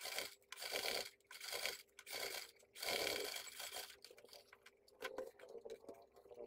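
Leather bag panels rustling and scraping as they are handled and turned over on a cutting mat: about five loud swishes in the first three and a half seconds, then lighter rubs and clicks.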